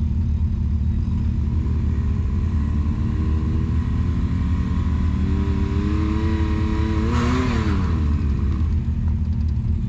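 Side-by-side UTV engines on a rough trail: a steady low rumble, with one engine's pitch climbing slowly under load for several seconds. Near the end there is a brief gush of noise and the pitch drops back.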